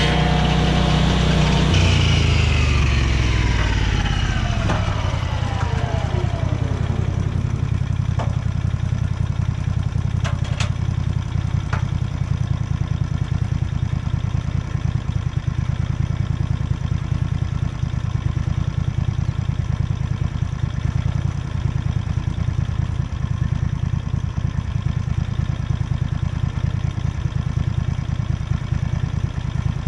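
An engine winds down from high revs over the first several seconds and settles into a steady idle. A few faint clicks sound around the middle.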